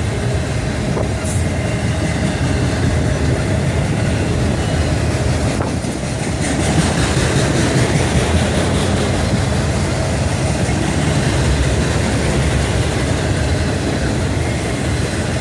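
Train rolling past, a loud steady rumble of wheels on the rails.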